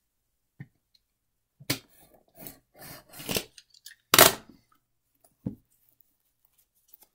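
Board game box being handled and worked at with a pen-like tool: a string of short scrapes, rustles and knocks, with one loud sharp knock or tear about four seconds in.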